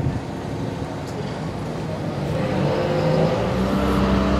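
An engine running, rising in pitch from about halfway through and then holding steady.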